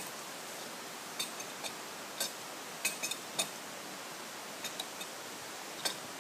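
Short, sharp metallic clicks at uneven intervals as the last bolt on a stamper battery's frame is tightened with a long-handled spanner, over a steady hiss.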